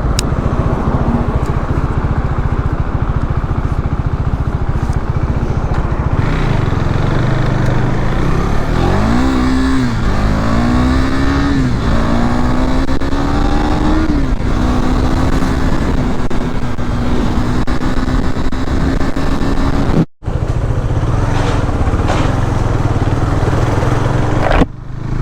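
Motorcycle being ridden, its engine running under a steady rushing noise. About nine seconds in the engine note climbs, dips, climbs again and then holds steady, as when accelerating through a gear change and then cruising. About 20 seconds in the sound cuts out for a moment.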